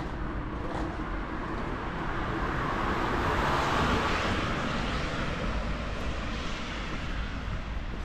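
A vehicle passing by: a rushing noise that swells to a peak about four seconds in and then fades, over a steady low background rumble.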